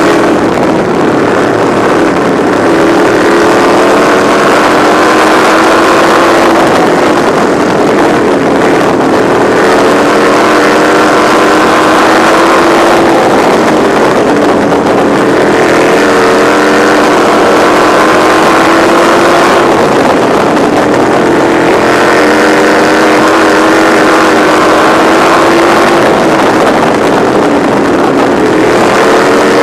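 Racing engine of a winged sprint car heard from onboard at full race pace, its revs climbing along each straight and dropping into each turn in a cycle about every six to seven seconds, with wind on the microphone.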